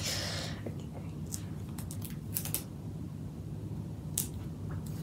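Hands handling craft materials at a desk: a short rustle right at the start, then a handful of scattered small clicks and taps, over a steady low hum.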